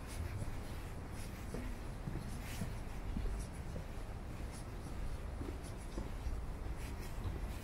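Footsteps of someone walking, irregular, about one step a second, over a steady low rumble.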